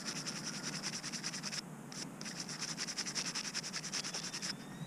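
Rapid, even scratching or rubbing at about ten strokes a second, in two runs with a short break about one and a half seconds in.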